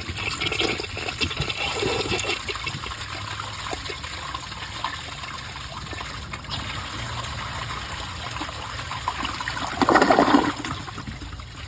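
A 1981 Briggs Abington toilet flushing at 1.6 gallons with a rag and a sock in the bowl: a continuous rushing of water, with a louder surge about ten seconds in. The flush fails to clear the sock.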